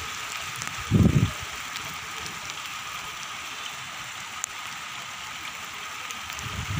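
Steady hiss of rain falling, with a brief low buffet of wind on the microphone about a second in.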